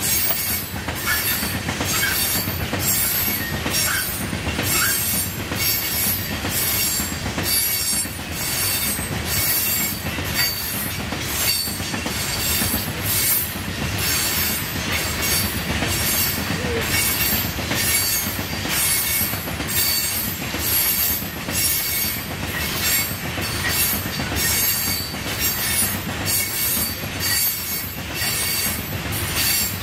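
A train rolling past on the rails, a steady rumble of wheels with a high-pitched pulsing that repeats about one and a half times a second.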